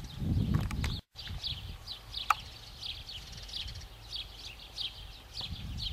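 Birds chirping over and over in short, high, falling chirps, several a second. A low rumble on the microphone fills the first second, the sound cuts out for a moment just after it, and there is a single sharp click a little over two seconds in.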